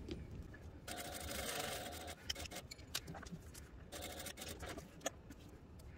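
Industrial sewing machine stitching through vinyl in two short runs, one about a second in and one near four seconds, with separate clicks of single stitches between them. The machine is topstitching down the side of a vinyl tube handle at a 5 mm stitch length. The sound is faint.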